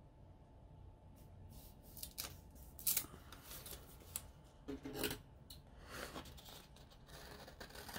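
Paper being handled: planner pages rustling as they are lifted and shifted, with a few quick snips of small scissors trimming a paper sticker.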